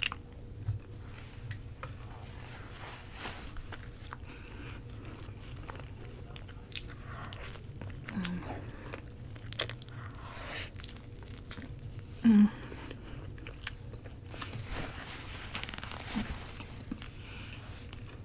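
Close-miked chewing and biting of a roti wrap: soft, irregular wet mouth clicks and smacks. A couple of short low hums are heard, the loudest about twelve seconds in.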